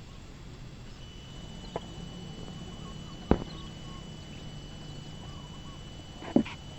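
Three short, sharp knocks over a steady low background rumble and a thin, steady high tone; the middle knock is the loudest.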